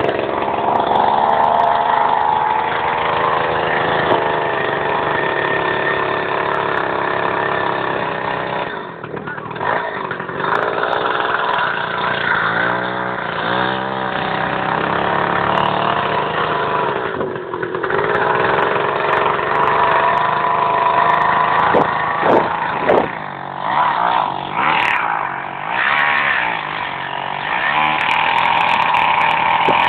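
Two-stroke chainsaw running hard while cutting into a frozen cow carcass. Its pitch drops and climbs again several times as the chain bogs in the cut and frees up.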